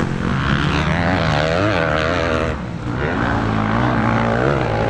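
Motocross bike engine at high revs, its pitch rising and falling as the throttle is worked. It dips briefly a little past halfway, then climbs again.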